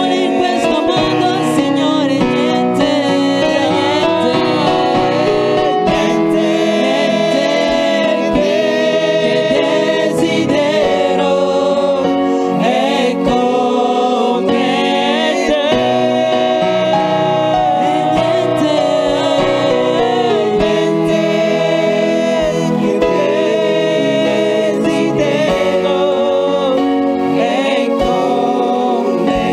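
Gospel worship music: voices sing long, held notes over a steady instrumental backing.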